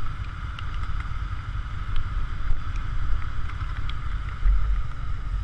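Motorcycle engines running at low speed, a steady low rumble that rises and falls slightly, with wind buffeting the microphone.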